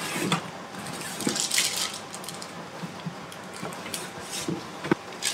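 A tower fan in its plastic and foam wrapping being slid out of a cardboard box: rustling and scraping, with a few light knocks.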